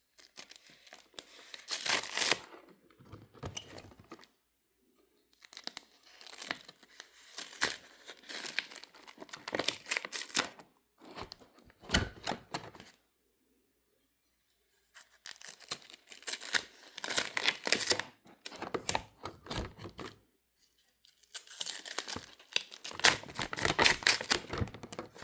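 Trading cards and their wrappers being handled: crackly rustling and crinkling in four bursts of a few seconds each, with short pauses between.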